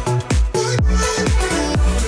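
Background pop dance music with a steady four-on-the-floor kick drum and bass, no vocals in this stretch.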